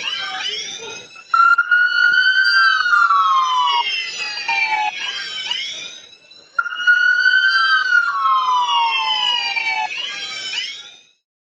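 Police car siren wailing: the pitch jumps up, then slides slowly down over about four seconds, twice. It cuts off abruptly near the end.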